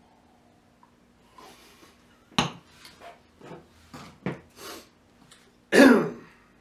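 A pint glass being handled against the mouth and a wooden bar top: a run of short smacks and knocks, about two or three a second, with one sharp knock of glass on wood. A louder, longer rough sound comes near the end.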